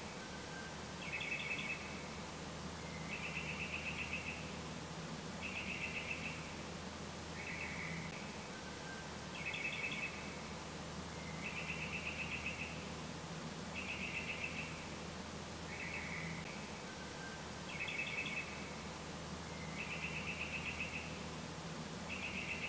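Chirping animal calls: short pulsed trills, about one every two seconds, the same sequence of calls coming round again about every eight seconds, over a faint steady low hum.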